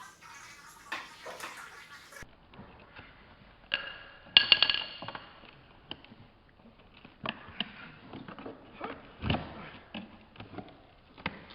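Clinks and knocks of hard objects being handled, one ringing briefly about four and a half seconds in, then more scattered clicks.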